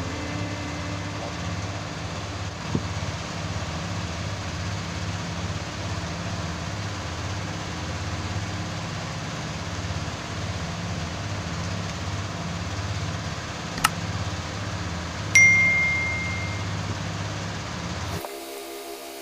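A metal object struck once, ringing with a clear high tone for over a second, over a steady low background hum. A sharp click comes a moment before the strike.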